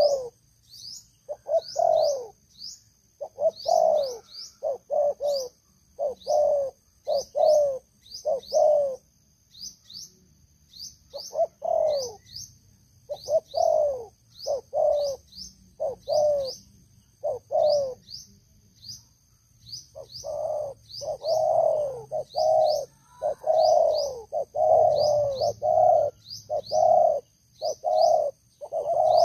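Spotted doves cooing: low, falling coo notes repeated in runs of about one to two a second, with a pause about a third of the way in and a denser, louder run in the last third. Over them, a small bird's short high chirps repeat quickly throughout.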